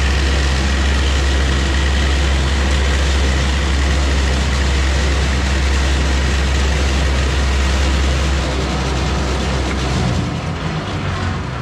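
Large vertical bandsaw running and cutting a sheet-metal plate: a loud, steady motor hum under the hiss of the blade through the metal, with a faint high steady tone. About ten seconds in the low hum drops away and the sound eases off.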